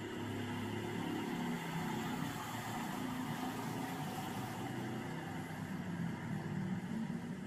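Motor vehicle running: steady engine and road noise.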